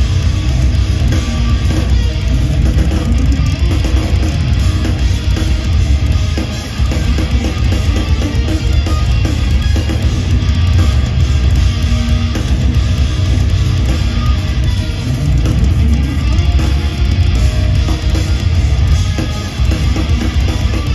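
Live instrumental progressive metal from two electric guitars and a drum kit, played through the PA of a large hall. It runs loud and dense throughout, with heavy low end and fast, intricate guitar lines over the drums.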